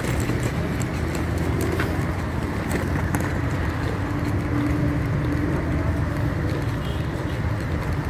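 Steady low rumble of car engines and street traffic.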